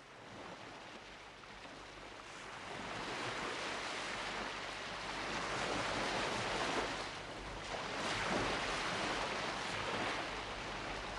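Ocean surf washing up a sandy beach, fading in from quiet and swelling with the waves, with a brief ebb about seven seconds in.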